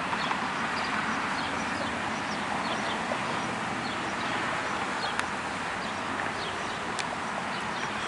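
Steady rush of strong wind, with birds chirping now and then.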